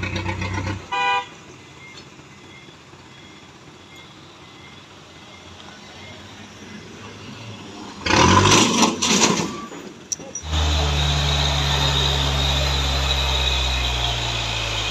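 A short horn toot at the start, a loud burst of noise about eight seconds in, then from about ten and a half seconds in the diesel engine of a Mitsubishi Fuso truck running steadily at low revs as it labours up a steep climb.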